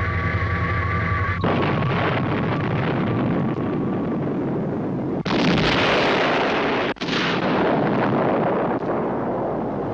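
Science-fiction sound effects: a droning spacecraft hum with several pitches cuts off after about a second and a half, and a rumble follows. About five seconds in comes a loud explosion, and after a brief break at about seven seconds a second blast slowly dies away.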